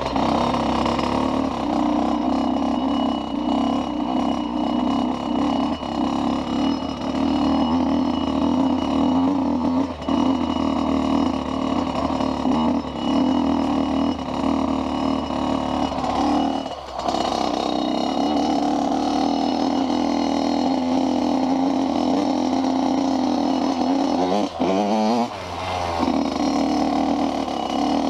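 Dirt bike engine running steadily under way, with a few brief drops in the engine note and a quick rising rev about three-quarters of the way through.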